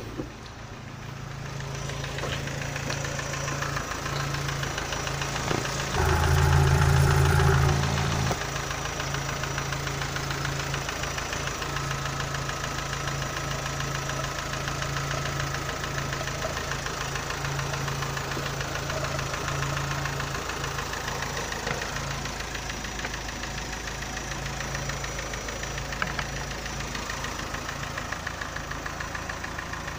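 Opel Astra G's 1.6-litre Z16SE eight-valve four-cylinder petrol engine idling steadily. It gets noticeably louder for about two seconds around six seconds in.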